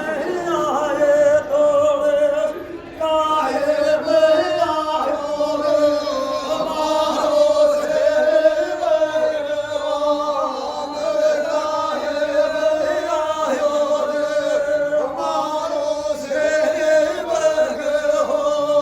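A man singing a devotional folk song (bhajan) in long, drawn-out phrases over a steady held tone, with a brief break about three seconds in.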